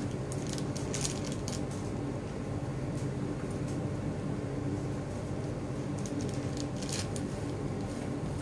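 Steady low hum of room machinery, with scattered light clicks and ticks about a second in and again around six to seven seconds in.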